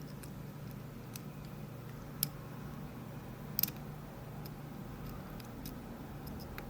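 Small, sharp metal clicks of a lock pick and tension tool working the pins inside a Rav Bariach LocXis pin-in-pin euro cylinder, spaced irregularly, the loudest a double click about three and a half seconds in, over a steady low hum.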